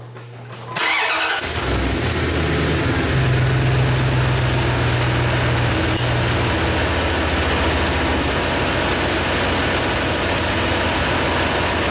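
Dodge pickup truck's engine started: it catches about a second in, then runs at a steady idle, with the pitch of its hum easing down a few seconds later.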